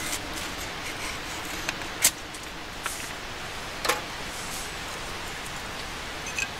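A knife shaving curls off a wooden kindling stick, with a few short sharp clicks and knocks of wood and knife being handled, the loudest about two seconds in. A steady background hiss underlies it all.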